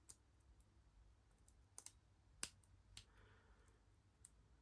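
Lock pick working the pins of a small padlock under tension: scattered faint metallic clicks, a quick pair just before two seconds in and the loudest about half a second later.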